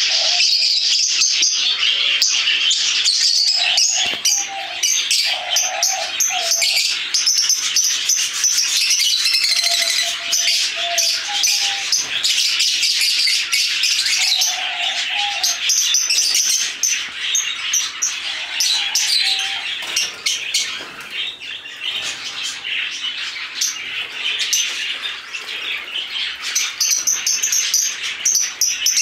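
Many cage birds in an aviary, lovebirds, doves and cockatiels among them, chirping and chattering together in a dense, continuous high-pitched chorus, with a few lower calls scattered through it.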